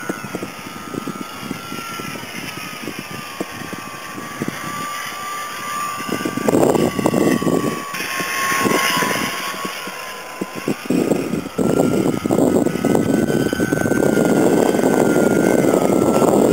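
Radio-controlled foam plane's motor and propeller whining steadily in flight, the pitch dipping and rising a little. Gusting wind buffets the microphone over it, heaviest about six seconds in and through the last five seconds.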